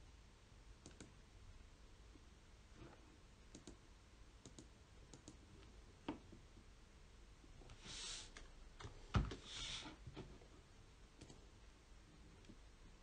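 Faint, sparse clicks of a computer keyboard and mouse as code is typed and edited. There is a louder knock about nine seconds in, with short hissing swishes just before and after it.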